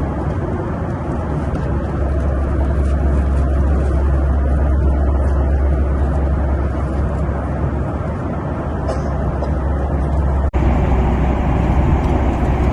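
Steady roar of engine and airflow noise inside a passenger aircraft's cabin, with a strong low hum. About ten and a half seconds in it breaks off for an instant, then returns brighter and hissier.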